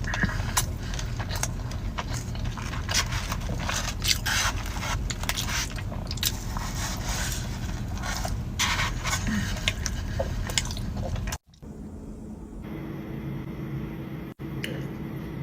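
Close-up eating sounds: food being chewed and bitten, with many short crisp clicks and crunches. About eleven seconds in these cut off sharply and give way to a steady low hum with a faint tone.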